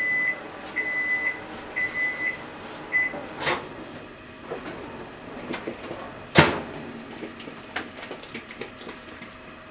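An electronic kitchen appliance beeps four times, about a second apart, followed by a few light knocks and one sharp clack about six seconds in.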